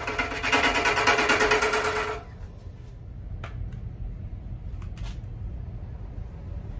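A turning gouge cutting into a spinning, bark-covered oak log on a wood lathe, a loud rhythmic chattering as the tool meets the out-of-round surface on each turn. It stops suddenly about two seconds in, leaving a low hum and a few faint clicks.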